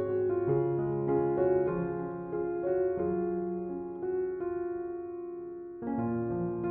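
Soft background piano music: slow chords and single notes, each note left to ring, with a new chord struck about six seconds in.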